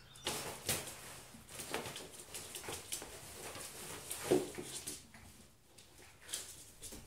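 Kitten and schnauzer puppy scuffling in play on a wooden floor: irregular scrabbling and pattering of paws and bodies, with a louder knock about four seconds in and another about six seconds in.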